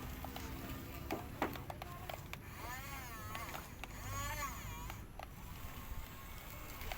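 Two drawn-out, meow-like cries, each rising and then falling in pitch, with scattered sharp clicks around them.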